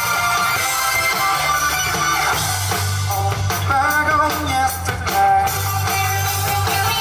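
Live rock band playing: electric guitar over a steady bass line and drum kit, with several sharp drum and cymbal hits in the middle.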